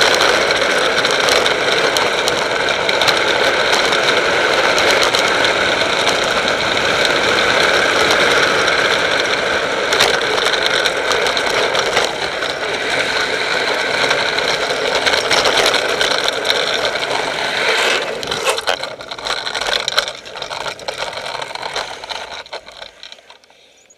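Vehicle running down a steep road, heard from inside the cabin: steady engine and road noise with some rattling. Near the end it turns uneven and falls away.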